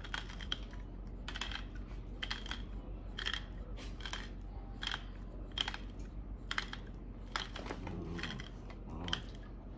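Seasoning shaker being shaken over raw chicken pieces: a series of short, crisp rattling shakes, roughly one every half second to a second, over a steady low hum.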